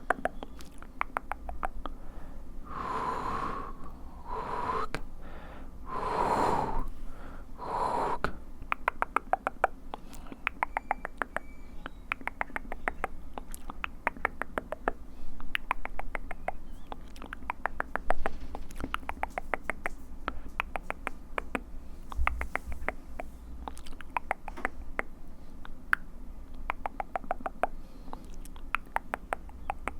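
Close-miked ASMR mouth sounds: rapid wet clicks and pops of the tongue and lips, with a few breathy, blown sounds in the first eight seconds or so.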